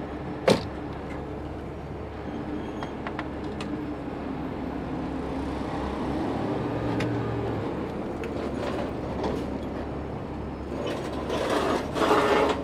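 A 50-ton Miller Industries Vulcan 950 rotator tow truck running its winch to raise a suspended car, a steady mechanical hum with a wavering tone through the middle. There is a sharp click about half a second in and a louder stretch of noise near the end.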